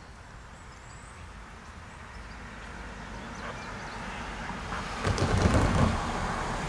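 Distant diesel freight trains, a GE-led intermodal and an EMD GP40-led local, rumbling as they approach side by side, growing slowly louder. About five seconds in, a loud low burst of camera-handling noise covers them for about a second.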